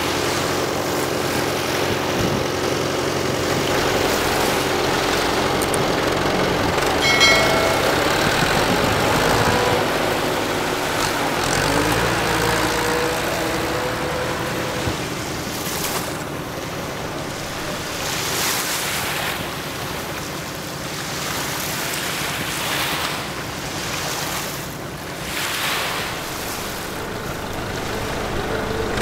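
Tractor engine running in shallow surf, with waves washing and water splashing around it. The engine is plainest in the first half, and the water in the second. A brief high tone sounds about seven seconds in.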